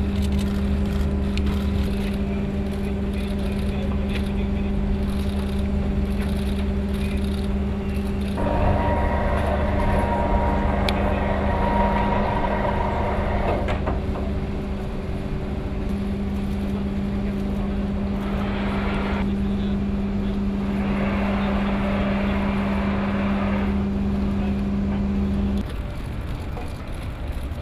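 Steady low machine hum at one constant pitch over a deep rumble, cutting off near the end, with stretches of louder hissing noise over it in the middle.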